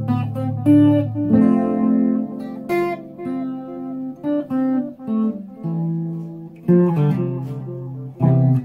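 Guitar music: a melody of picked single notes and a few chords, the notes changing about every half second.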